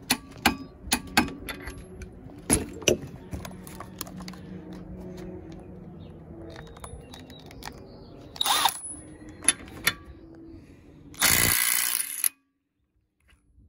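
Milwaukee 2453-20 M12 Fuel brushless impact driver hammering for about a second near the end, working on a bolt tightened to 120 foot-pounds. Before it, sharp metal clicks and clanks as the torque wrench, socket and adapter are handled.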